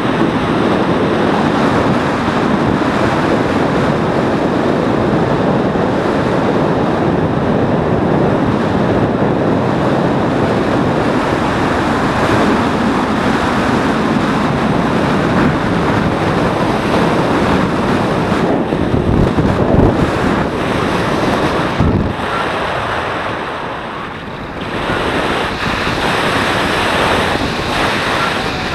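Wind rushing over the microphone of a paraglider's harness-mounted camera during a winch-towed climb, a loud steady rush that eases for a few seconds about three quarters of the way through before picking up again.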